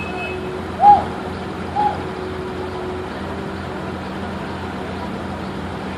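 A vehicle engine running steadily at a low, even hum, with two short high chirps about one and two seconds in.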